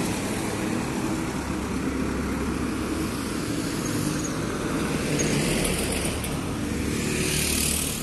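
Road traffic with buses passing close: engines running with tyre noise. A broad hiss swells near the end as another vehicle goes by.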